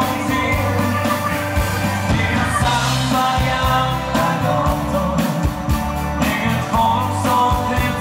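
Dansband playing live: a singer over drums, bass and guitar, with a steady danceable beat.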